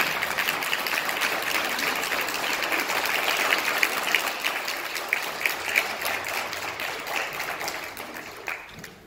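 Audience applauding: dense, many-handed clapping that starts at once and dies away near the end.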